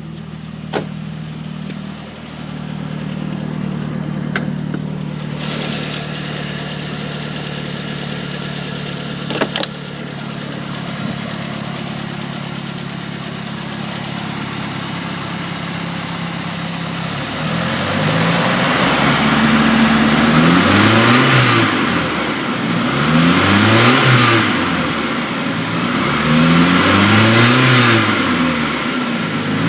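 2000 Chevy S10's 2.2-litre four-cylinder engine idling steadily, with a few sharp clicks in the first ten seconds, then blipped up and back down several times in a row from a little past halfway. It carries a rattle whose source the owner cannot find.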